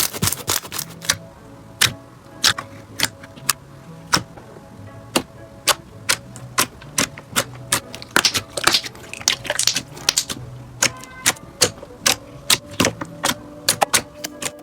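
Slime being pressed and folded, giving many sharp, irregular clicks and pops, bunched more closely in places, over soft background music.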